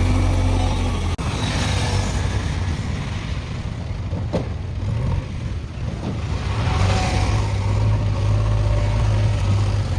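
JCB 3DX backhoe loader's diesel engine running under working load, its note varying, with a sudden brief dip about a second in and the engine getting louder again in the second half.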